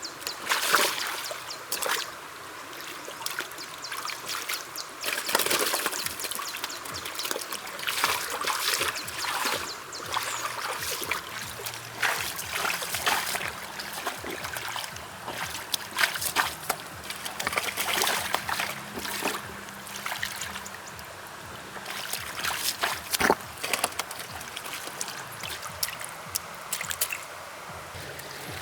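Shallow muddy water splashing and sloshing in irregular bursts, over a steady trickling.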